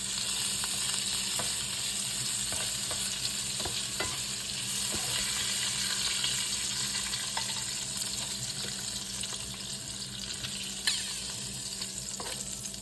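Shrimp sizzling in bacon grease in a frying pan, with scattered light clicks of a utensil against the pan as the shrimp are lifted out. One sharper click comes about eleven seconds in, and the sizzle eases a little in the second half.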